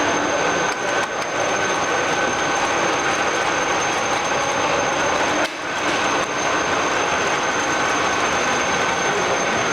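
All-geared radial drilling machine running: a steady geared whir with a thin high whine, briefly dropping in loudness about five and a half seconds in.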